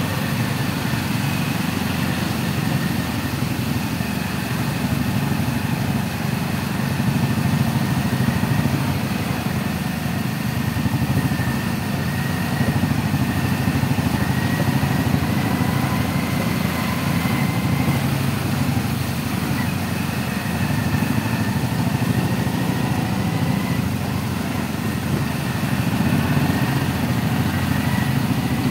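A two-wheeler's engine running steadily at low speed in slow, jammed traffic, mixed with the engines of the surrounding cars and motorbikes. A faint steady whine sits over the low engine note.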